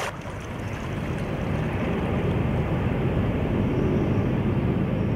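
A steady engine drone that slowly builds in loudness over the first few seconds.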